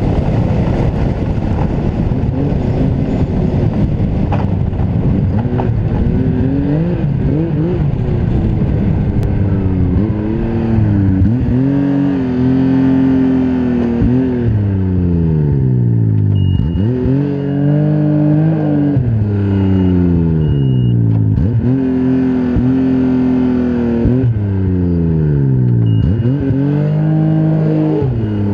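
Turbocharged four-stroke snowmobile engine breathing through an aftermarket Turbo Dynamics muffler. It runs rough and fairly steady at first, then is revved repeatedly, about every three to four seconds. Each rev rises quickly in pitch and falls away slowly.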